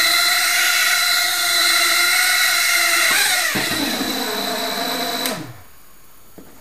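The four 8x20mm brushed motors of an ultra micro quadcopter spinning its props at flying speed, a steady high whine with a hissing edge. About three seconds in the pitch slides down, and a little past five seconds the motors stop abruptly.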